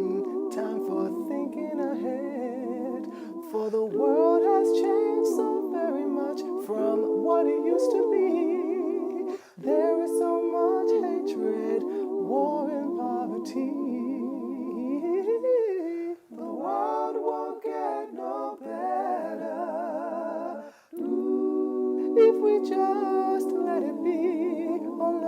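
Wordless a cappella vocal harmony: several voices hold close chords with vibrato, with sliding lines on top. The chords break off briefly about 9, 16 and 21 seconds in and start again.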